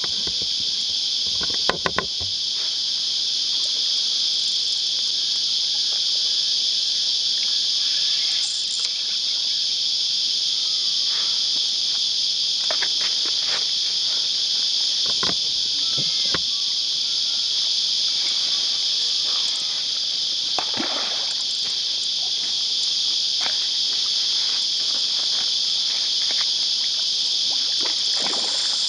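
Loud, steady chorus of cicadas, a continuous high-pitched buzz. A few sharp clicks come about two seconds in, and a carp splashes at the surface of the shallow water now and then.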